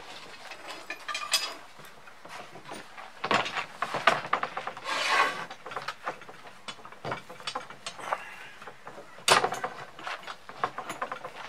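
Oak door-frame rails and stiles being handled and pushed together: wood rubbing and scraping as joints slide home, with scattered wood-on-wood knocks, the sharpest about three seconds in and about nine seconds in.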